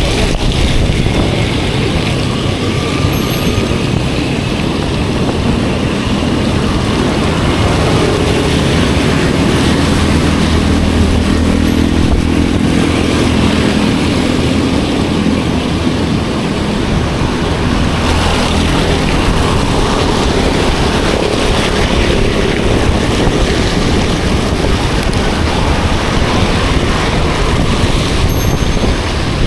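Riding a bicycle in the rain: a loud, even rush of wind and road noise on an action camera's microphone, with a motor vehicle's engine hum rising and passing through the middle.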